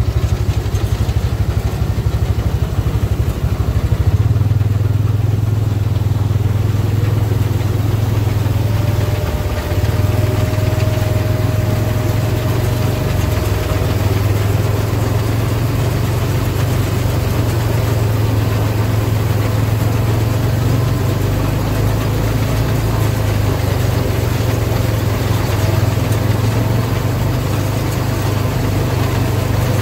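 Engine running steadily at a constant speed, with a faint steady whine joining in about nine seconds in and again near the end.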